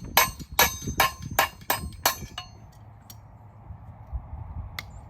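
Hammer blows on metal, six ringing strikes at an even pace of about two and a half a second that stop about two seconds in, followed by a low steady rumble and a single sharp click near the end.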